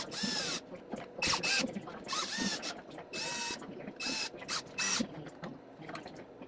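Drill driver running in short bursts, about six in five seconds, its motor pitch sweeping up and down as it drives small screws through a metal corner bracket into the wooden box. The bursts stop about five seconds in.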